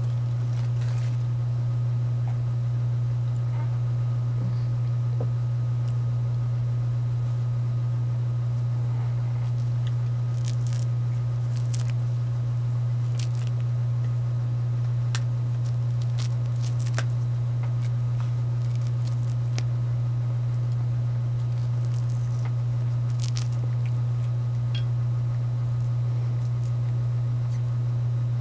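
A mandarin being peeled by hand: scattered small tearing and crackling clicks as the rind comes away, over a steady low hum.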